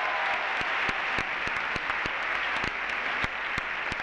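Theatre audience applauding steadily, with close, distinct hand claps standing out from the crowd's clapping.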